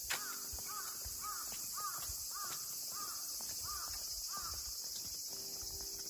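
A bird calling: a run of about seven short, evenly spaced arched calls, about one and a half a second, that stops about two-thirds of the way through, over a steady high hiss.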